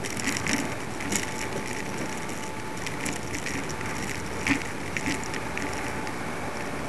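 Steady hiss and rubbing noise on a tiny mini camcorder's built-in microphone as it swings from fishing line under helium balloons, with scattered light clicks and knocks.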